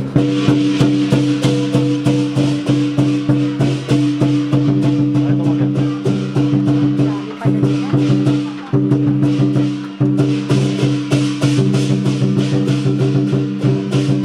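Chinese lion and dragon dance music: fast, steady percussion of drum and cymbals at about four or five beats a second over sustained low ringing tones.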